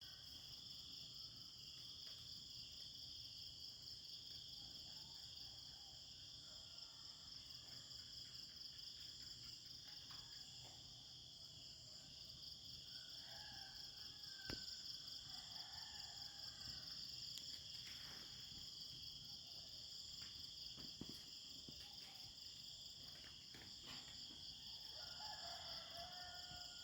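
Faint rural insect chorus, a steady high-pitched trilling that never lets up, with faint bird calls a few times, including near the end.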